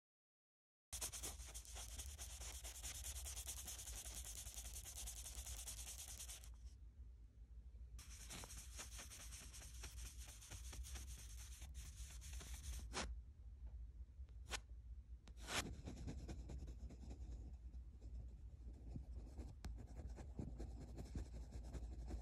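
Pencil scratching and rubbing on paper in quick strokes, sketching and shading. There is a pause of about a second and a half a third of the way in, then a few sharp taps, and the rubbing is softer near the end.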